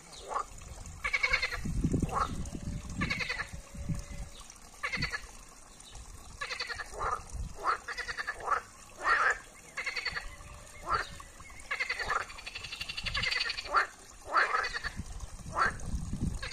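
Chorus of green frogs (Pelophylax) calling: short pulsed croaks from several frogs, about one a second and sometimes overlapping.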